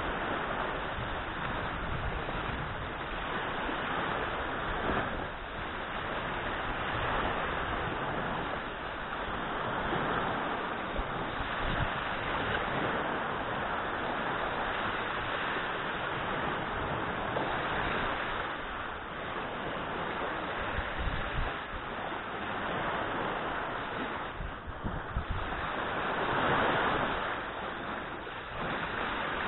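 Small surf waves breaking and washing onto a sandy beach, the noise swelling and easing in slow surges, with wind buffeting the microphone.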